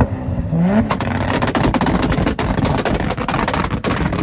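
Toyota Supra MK4's turbocharged 2JZ inline-six blipped up in revs, then held on its anti-lag tune, which fires a rapid, continuous string of loud pops and bangs out of the exhaust as fuel burns in it, with flame coming out of the tailpipe.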